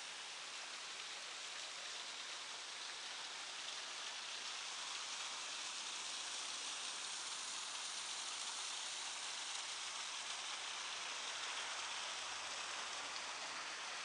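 Steady rushing hiss of water from a garden waterfall, growing a little louder partway through.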